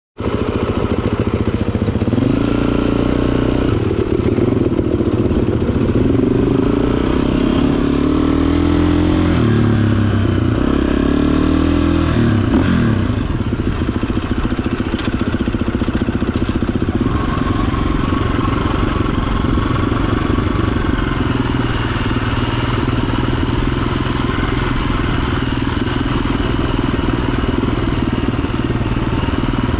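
Off-road motorcycle engine running while riding a dirt trail. For the first dozen seconds its pitch climbs and drops in steps as the rider works through the gears, then it holds a steadier note at cruising revs.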